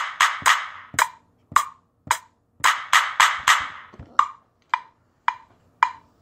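Percussion beat of sharp, wood-block-like hits with no voice over it: short runs of quick hits about four a second alternate with single hits about two a second.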